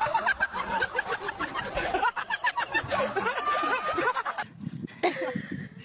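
A crowd of onlookers laughing, many voices at once; the laughter cuts off suddenly about four and a half seconds in.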